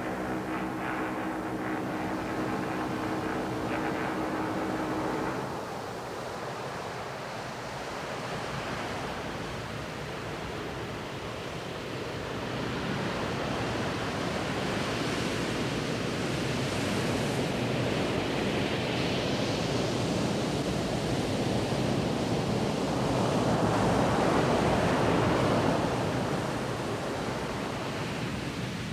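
Sea surf washing in: a steady rushing that swells and eases, with wind on the microphone.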